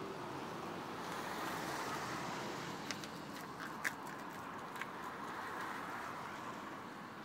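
Steady outdoor night background noise, an even hiss-like wash, with a few faint clicks about three, four and five seconds in.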